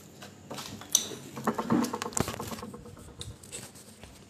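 Handling noise as a phone is picked up and moved: a scattered run of clicks, taps and knocks, thickest about one to two and a half seconds in.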